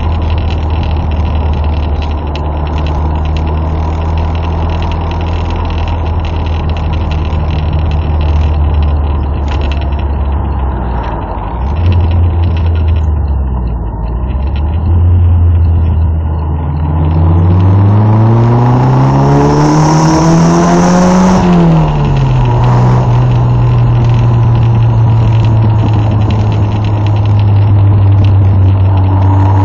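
Dutton Phaeton S3 kit car's engine heard from its open cockpit while driving, with wind rush over the car. The engine runs steadily and eases off about halfway through. It then revs up for several seconds with a rising pitch, falls back quickly, and settles to a steady run.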